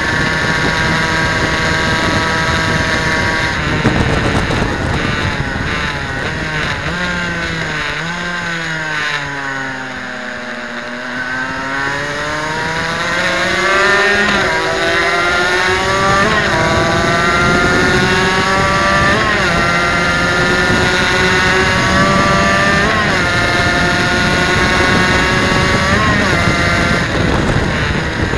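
Suzuki RGV250's two-stroke V-twin engine at racing revs, recorded on the bike: from about four seconds in the revs drop in steps through downshifts under braking to their lowest around ten seconds, then the engine climbs hard through the gears again, with an upshift every two to three seconds.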